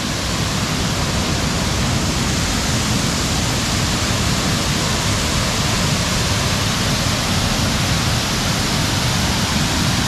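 A waterfall: water falling close by in a steady, unbroken rush.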